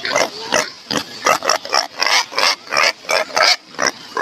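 Pig oinking in a rapid series of short calls, about three a second.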